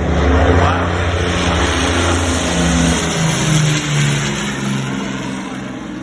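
Aircraft engine noise as a departing plane passes close by on take-off. The engine pitch falls as it goes past, and the sound slowly fades toward the end.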